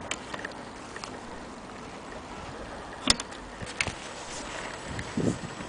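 Steady low background hiss with a few handling clicks: one sharp click about three seconds in, a couple of fainter ticks just after, and a soft knock near the end.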